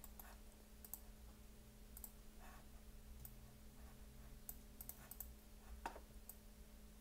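Near silence with faint, scattered clicks from a computer mouse and keyboard while values are set, over a low steady electrical hum.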